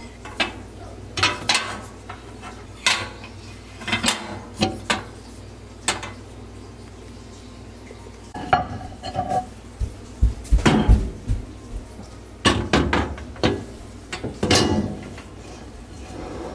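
Hard objects knocking and clinking as they are handled. The knocks come singly and irregularly at first, then in busier clusters of clatter in the second half.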